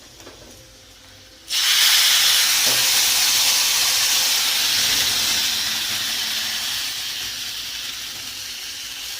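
Sugar water poured into a pan of hot tempering oil: a sudden loud hiss and sizzle of steam about a second and a half in, slowly dying down.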